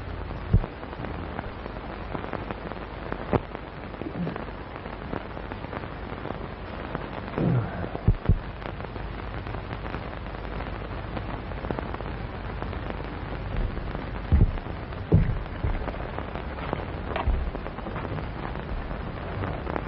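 Steady hiss and crackle of a 1930s film soundtrack, with a handful of sharp knocks and thuds scattered through it, the loudest about eight seconds in and two close together around fifteen seconds.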